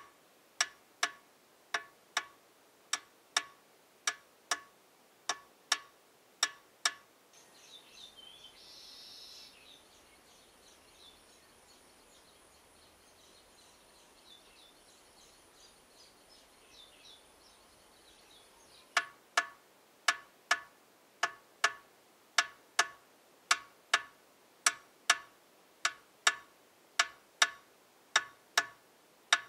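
A clock ticking steadily, a little under two ticks a second. About seven seconds in the ticking stops and faint bird chirps over a thin, steady high whine take over. The ticking returns about nineteen seconds in.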